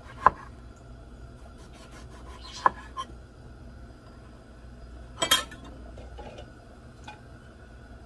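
A chef's knife and hands working on a wooden cutting board while peeling an eggplant: a few separate sharp clicks and knocks, two close together about two and a half seconds in and the loudest, a quick double knock, past the middle.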